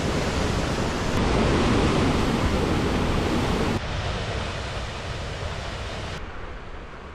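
Waterfall rushing: a steady, dense roar of falling water. It drops suddenly in level about four seconds in and is duller and quieter still from about six seconds in.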